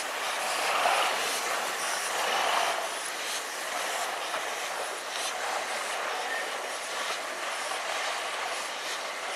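Peppercorn A1 Pacific steam locomotive 60163 Tornado moving slowly away with its train: a steady noise of the engine working and its wheels on the rails, growing slightly fainter as it draws off.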